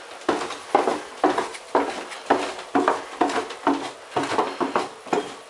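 Footsteps going down a flight of stairs, about two steps a second.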